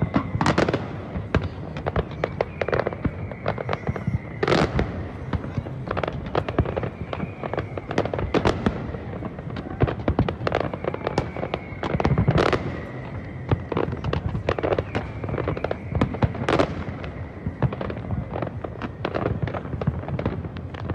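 Aerial fireworks display: a dense, continuous run of shell bursts and crackling, with a few louder bangs standing out every several seconds.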